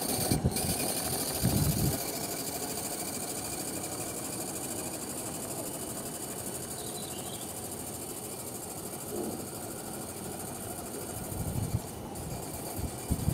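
A 3/4-inch scale Maxitrak live-steam traction engine running as it drives away, a steady hiss with no clear beat. A few low thumps come near the start and again near the end.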